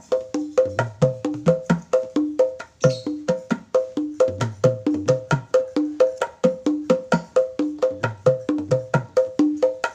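Set of hand-played drums, a pair of blue Black Papua kempul (conga-style drums) with an orange hand drum, played bare-handed. The beat is fast and steady, about five strokes a second, alternating a ringing higher tone with a lower one over occasional deep thuds. The kempul heads are not yet fully settled in.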